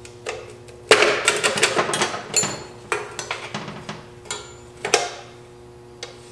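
Metal clanking and knocking as hand tools work on the steel dust cover at the hub of a BMW E36 rear trailing arm. The clanks come in a quick, dense run about a second in, then as single knocks every second or so, some with a short metallic ring.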